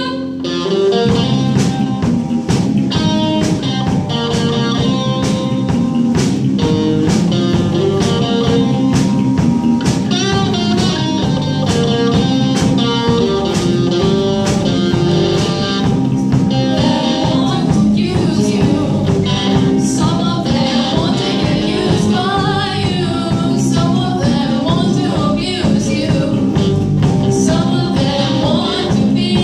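Band-style song with a steady drum beat, guitar and a singing voice.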